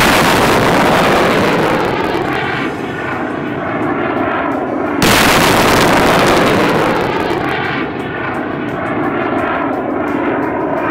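Two Pechora-2M surface-to-air missile launches about five seconds apart: each starts with a sudden loud blast, followed by the rocket motor's roar fading as the missile climbs away.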